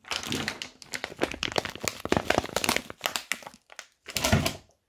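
Sticky slime made from mouse-trap glue, dusted with cornstarch, squeezed and kneaded between the fingers: a dense run of crackles, pops and wet sticky squelches, loudest about four seconds in.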